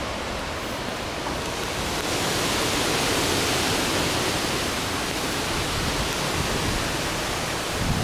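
Strong storm wind gusting through leafy trees, a steady rush that swells about two seconds in and eases off a little; hurricane-force winds building ahead of the storm's arrival.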